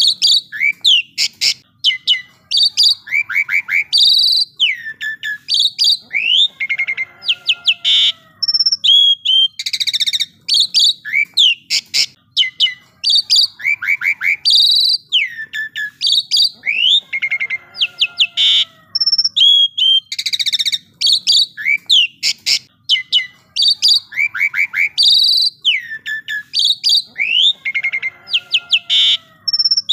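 Asian pied starling (jalak suren) singing a long, varied song of clear whistles, quick chattering note runs and raspy calls. The same passage recurs about every ten seconds, as in a looped recording.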